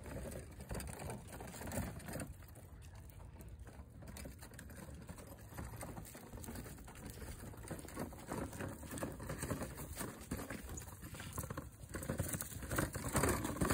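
Footsteps and a small plastic toy wheelbarrow rolling over wood-chip mulch: a steady patter of crunching and crackling, getting louder near the end.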